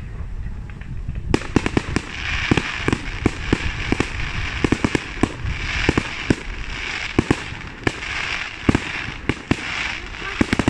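Fireworks display: after about a second, a rapid, irregular barrage of aerial shells bursting with sharp bangs, several a second, over a continuous crackling hiss that swells and fades.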